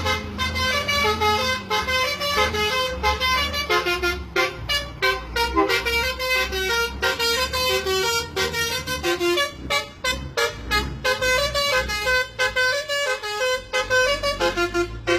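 A bus's 'telolet' multi-tone musical air horn playing a fast tune of short pitched toots over the low rumble of the bus's engine.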